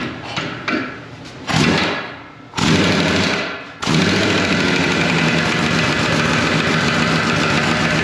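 A motor-driven machine starting up: two loud short bursts about a second apart, then running steadily from about four seconds in.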